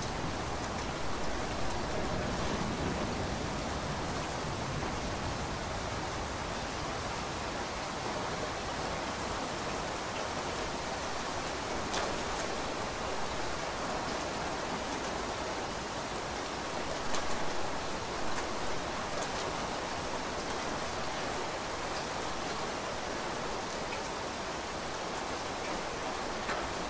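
Steady heavy rainfall, an even hiss with scattered sharper drop hits, and a low rumble of distant thunder dying away over the first few seconds.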